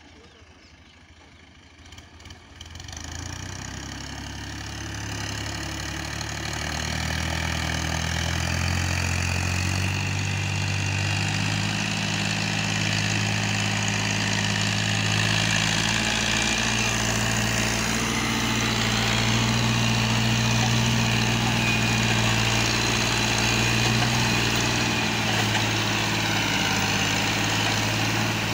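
Fiat 480 tractor's diesel engine pulling a heavily loaded sugarcane trolley. It grows steadily louder over the first several seconds as it approaches, then runs at an even, loud pace.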